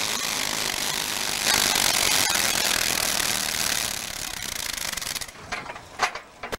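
A modified pulling garden tractor's engine runs hard through open upright exhaust stacks while dragging a weight-transfer sled. The sound is loudest from about a second and a half in, then eases off near the end with a couple of sharp knocks.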